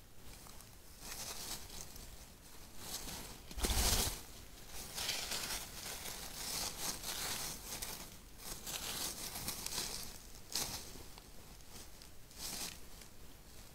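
Dry leaves and bedding rustling and crackling in irregular bursts as a European badger moves about in the litter at its sett entrance, with one louder thump about four seconds in.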